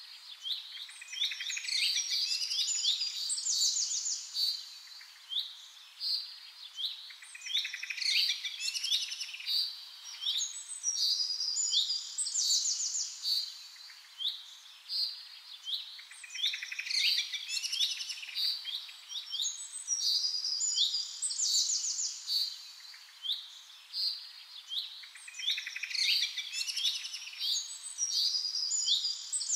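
Small songbirds chirping and trilling in quick clusters, a pattern that comes back every four to five seconds like a looped birdsong recording.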